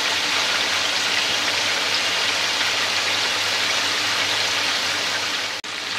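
Chicken pieces sizzling steadily as they fry in plenty of hot oil in a karahi, browning towards golden. The sound cuts out for an instant near the end.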